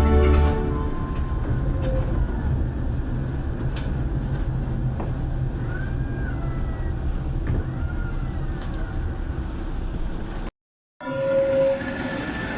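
Tatra K2 articulated tram running: a steady low rumble with a couple of faint, brief squeals in the middle. The sound cuts out abruptly about ten and a half seconds in, then comes back as a steady whine.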